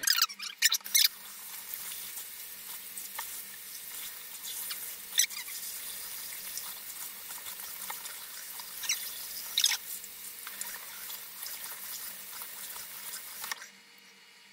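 Tap water running into a bathroom sink as a hair weave is rinsed under it, an even hiss with a few short clicks and squeaks; the water is turned off near the end.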